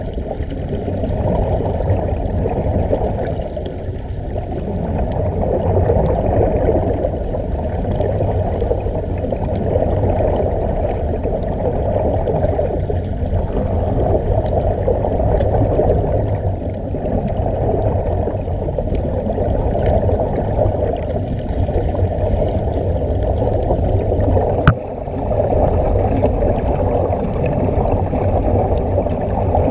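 Muffled underwater rushing and bubbling of air streaming out of a surface-supplied diving helmet, steady throughout, with one sharp knock late on.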